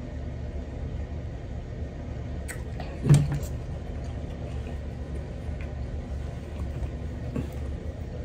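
Steady low background hum, with a few faint clicks and a short, low vocal sound about three seconds in as a drink from a water bottle ends.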